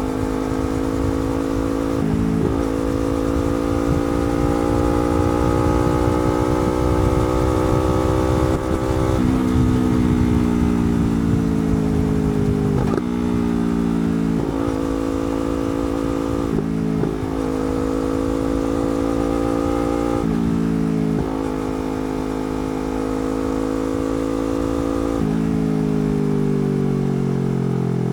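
Yamaha R3 parallel-twin engine through a slip-on exhaust, running under way: the pitch climbs, breaks briefly at several gear changes, and falls as the bike slows during some stretches and again near the end.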